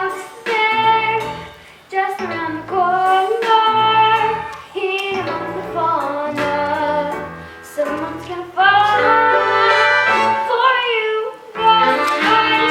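Musical-theatre band music: a passage without words, with a melody carried by horns over a bass line.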